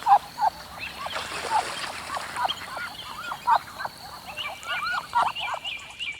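A group of ducklings peeping: many short, rapid rising-and-falling calls from several birds overlapping.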